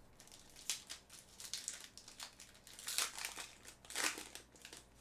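Foil trading-card pack wrapper crinkling and crackling as it is pulled open by hand, in irregular crackles, loudest about three and four seconds in.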